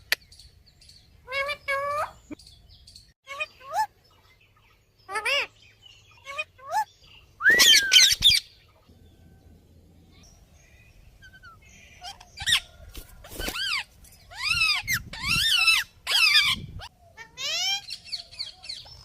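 Budgerigars calling: a string of separate short chirps and warbling calls that sweep up and down in pitch, the loudest about eight seconds in, a quiet few seconds after it, then a denser run of calls.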